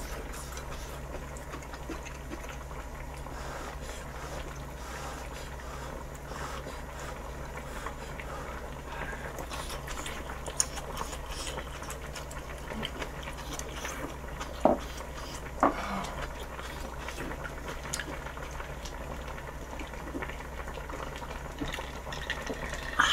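Pot of gopchang jeongol boiling on a portable gas burner: a steady, quiet bubbling and hiss. A few sharp clicks stand out around the middle.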